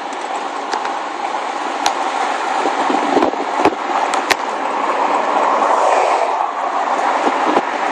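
Car driving on a paved road, heard from inside the cabin: steady road and tyre noise, with a few sharp clicks in the middle.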